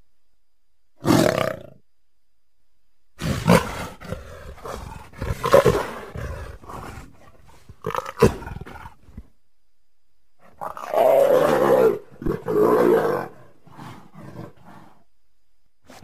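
Leopard calling in a series of rough, growling roars: one short call about a second in, a run of calls from about three to nine seconds, then two longer, louder calls around eleven and thirteen seconds, tailing off with a few fainter ones.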